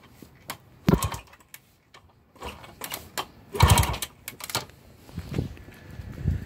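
1978 Kawasaki KD100M's two-stroke engine kicked over with the kickstarter and not starting: a clattering stroke about a second in and a louder one around the middle, with smaller knocks after. The engine turns over against good compression.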